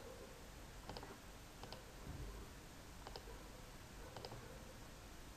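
Faint computer mouse clicks, about half a dozen short sharp clicks spaced irregularly over a low steady hiss.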